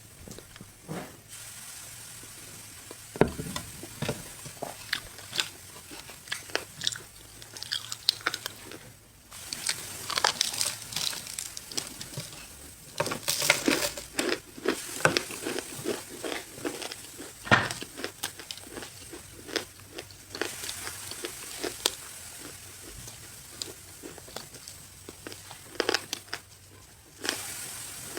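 Someone biting and chewing a crunchy square snow bar: a dense run of sharp crunches and cracks, with brief pauses between bites.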